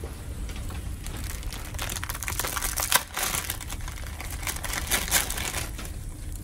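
Plastic instant-noodle packet crinkling as it is torn open and shaken out, with a sharp snap about three seconds in and a second loud patch near five seconds.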